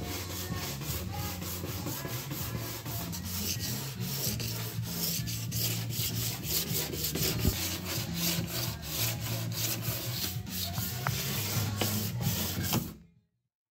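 Hand-sanding of a fiberglass boat deck with a sanding pad: quick, repeated back-and-forth rubbing strokes that stop abruptly near the end.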